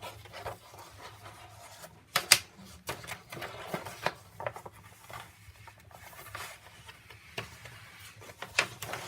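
A large sheet of thick elephant hide (Wyndstone Marble) paper being unfolded and handled: intermittent rustling and sharp crinkles of stiff paper, the loudest crackle a little over two seconds in.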